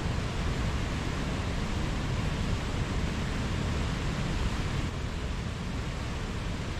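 Mountain stream water rushing steadily, an even hiss with a low rumble beneath it. The sound dulls slightly about five seconds in.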